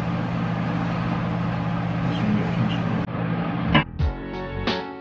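A steady low machine hum with a few constant tones. About three seconds in it cuts off and background music with a beat begins.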